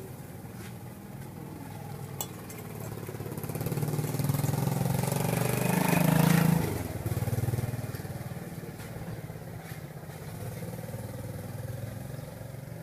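Engine of a passing vehicle, growing louder to a peak about six seconds in and then fading away.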